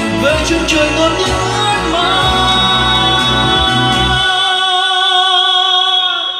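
Instrumental interlude of a Vietnamese pop ballad played loud over a PA system, with bass and drum hits; about four seconds in, the bass and drums drop out, leaving held synth chords.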